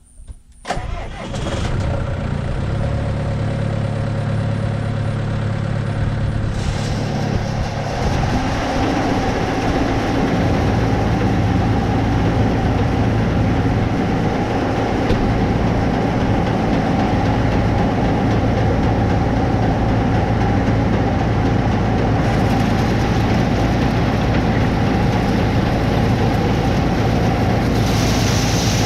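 A heavy vehicle engine starts about a second in and then runs steadily. Around seven seconds in it picks up and runs louder and fuller.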